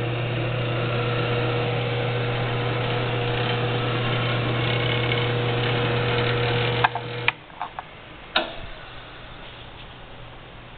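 Benchtop belt-drive drill press motor running with a steady hum. About seven seconds in, its paddle switch is clicked off and the hum cuts out, followed by a few sharp clicks and knocks.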